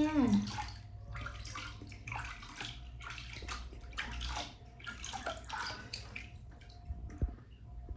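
Water sloshing and splashing in a plastic tub as a cupped hand scoops and pours it over a baby monkey being bathed, in irregular splashes.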